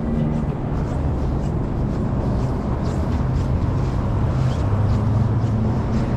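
Steady low rumble of street traffic, with the low hum of a vehicle engine running.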